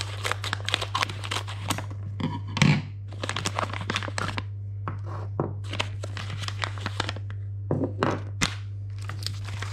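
Scissors snipping open a plastic pouch, then the plastic crinkling and rustling as it is opened and small plastic mount parts are handled and set down on a wooden table, in many short crackles with a louder knock about two and a half seconds in. A steady low hum runs underneath.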